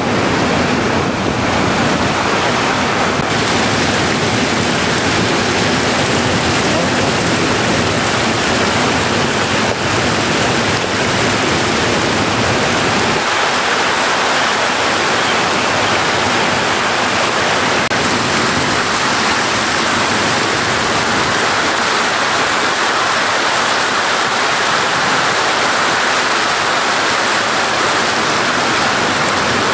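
Steady rush of water pouring from inlet spouts into concrete trout-farm raceways.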